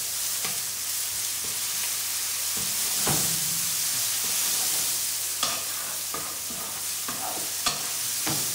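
Chopped onion, wild asparagus tips and boletus mushrooms sizzling in oil in a frying pan while a wooden spoon stirs them. The spoon's strokes against the pan stand out several times in the second half.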